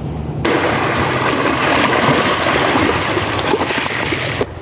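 Small waves washing in over a pebbly, rocky shore, a steady hiss of surf and foam. It starts suddenly about half a second in and cuts off just before the end. Before it, a low rumble of wind on the microphone.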